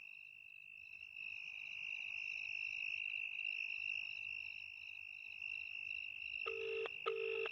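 Crickets chirping: a steady high trill with a faster pulsed chirp running over it. Near the end a phone's ringback tone comes in, a low double ring heard through the handset as a call rings out.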